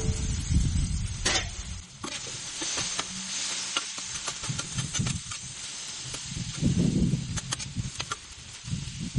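Chicken pieces sizzling on a Blackstone flat-top steel griddle while a metal spatula scrapes and taps across the griddle, turning them, with a metallic clank right at the start.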